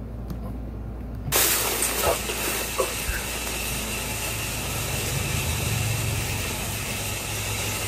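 Shower spray hissing steadily, played back from a phone voice recording, starting suddenly about a second in, with a faint steady high tone over it.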